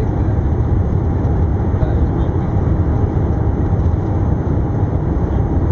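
Steady low rumble of an Airbus A380 heard from inside the passenger cabin as it rolls along the ground after touchdown.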